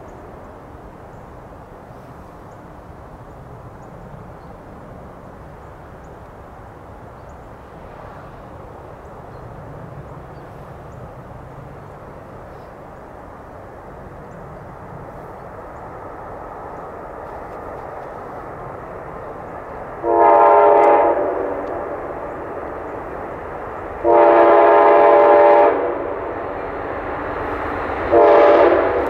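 Amtrak GE P42 diesel locomotive approaching, its rumble growing slowly louder. Then its chime horn sounds two long blasts and a short one, the opening of the standard long-long-short-long grade-crossing signal.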